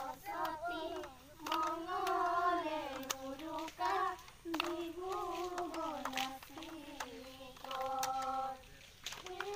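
A young woman's voice singing a Bihu song in long, drawn-out phrases with short breaks between them, with a few sharp claps now and then.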